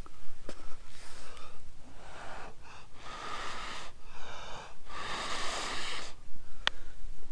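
A person blowing hard and steadily into a smouldering ember in a bundle of fluffed jute twine and dry grass, three long breaths out with quick breaths drawn in between, to coax it into flame. A single sharp click near the end.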